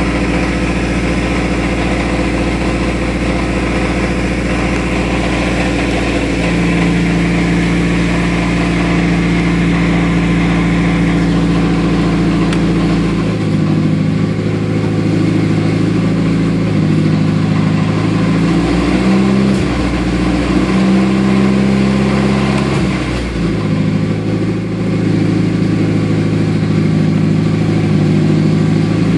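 1998 Toyota Camry engine running in drive, idling steadily at first, then revved up and down several times from about halfway through. The revs go nowhere because the driver-side CV axle is broken and no drive reaches the wheel.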